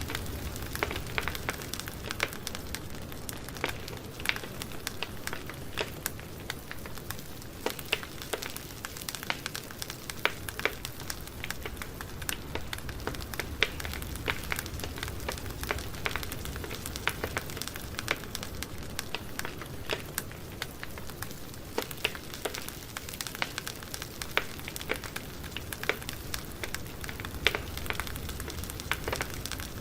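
Campfire burning, wood crackling and popping in frequent irregular sharp snaps over a steady low rush of flame.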